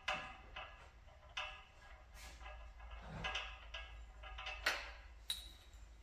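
Light metallic clicks and taps of a spark plug and socket extension being handled and fitted into a small engine's plug hole, with two sharper clicks near the end.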